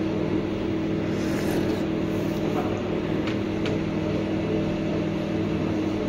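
Steady mechanical hum made up of several constant low tones, with a few faint clicks a little past the middle.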